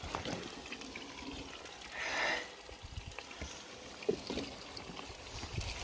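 Oil sizzling and bubbling in a kazan as a batch of potato fries deep-fries, a steady low hiss. A brief louder puff of noise comes about two seconds in, and a few light clicks just after four seconds.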